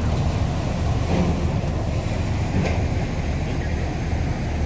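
Outdoor ambience on a walk: a steady low rumble, typical of wind on the microphone or a running engine, with faint voices of passers-by now and then.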